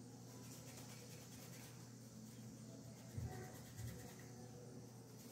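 Faint scratchy rubbing of a makeup brush being wiped back and forth on a paper towel to clean off eyeshadow. Two soft low thumps come a little after three seconds in and again near four seconds.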